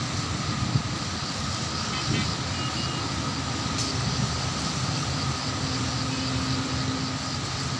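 Steady, even rumble of vehicles with a faint continuous hum and no distinct events.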